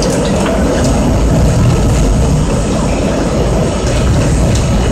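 R32 subway car running on the rails, heard from inside the leading car: a loud, steady rumble of wheels and running gear, with occasional light clicks.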